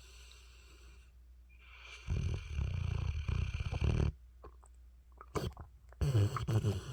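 Mastiff snoring: a long, low, rattly snore starts about two seconds in and lasts about two seconds. A short snort follows, then another snore starts near the end.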